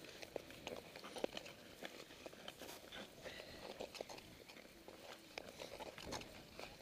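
Ice skate blades on natural lake ice: a run of short, irregular scrapes and clicks as the skaters stride.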